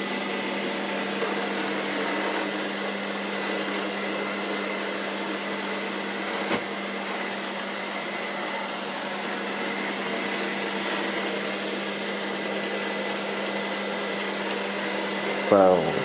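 Robot vacuum cleaner running: a steady whirring hum with a faint high whine over it. Near the end comes a brief sliding cry, the loudest sound here.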